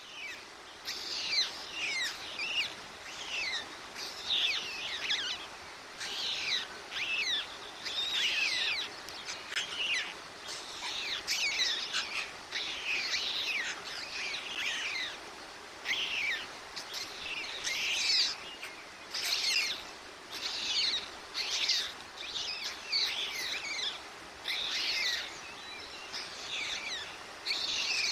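Small songbirds singing and chirping around the nest: short, high phrases of quick falling notes, repeated every second or so throughout.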